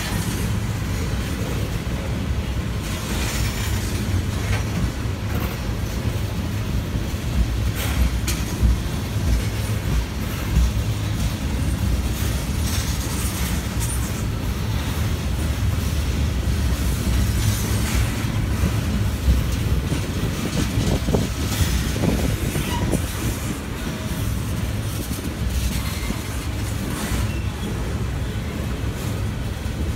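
Norfolk Southern freight train rolling past steadily: a continuous low rumble of car wheels on the rails, with scattered clacks.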